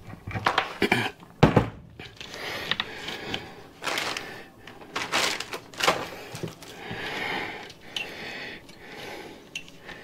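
Irregular knocks and clicks with soft rubbing in between, from a solid Tannus airless bicycle tire being stretched and worked by hand onto a 20-inch wheel rim.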